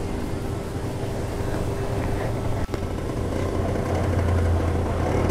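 Peugeot TKR 50 scooter's small two-stroke engine running steadily, with a short click about halfway and the running sound growing a little stronger from about four seconds in.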